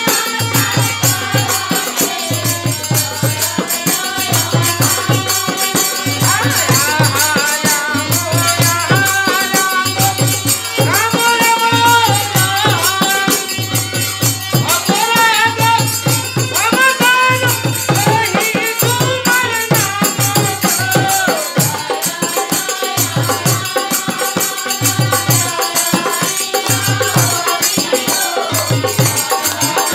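Bengali devotional Manasa song played live: women's voices singing a bending melody over harmonium, a two-headed barrel drum (dhol) beating low strokes about once a second, and small percussion keeping a steady high rhythm.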